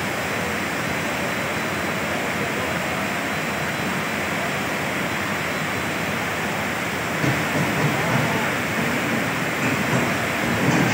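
Steady rushing of fast-flowing floodwater, an even wash of noise, with uneven low surges of louder sound from about seven seconds in.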